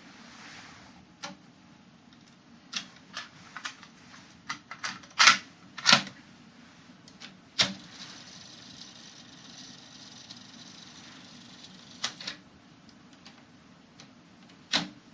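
TRIO KX-1000 cassette deck's transport keys and mechanism clicking and clunking through a series of operations during a post-repair function check. A steady hiss runs for about four seconds in the middle, starting and stopping with a clunk.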